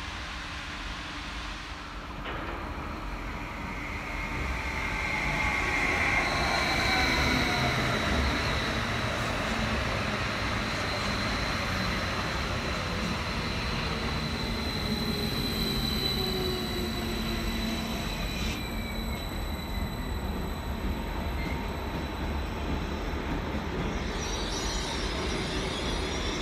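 SÜWEX Stadler FLIRT electric multiple unit pulling in alongside the platform, its motor whine falling in pitch as it slows, over wheel and running rumble. A high steady squeal runs through most of it.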